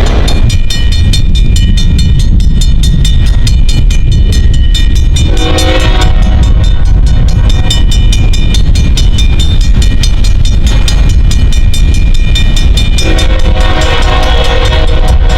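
Freight locomotive horn sounding a multi-note chord, with a short blast about five seconds in and a longer one starting near the end, over the loud, steady rumble of the train.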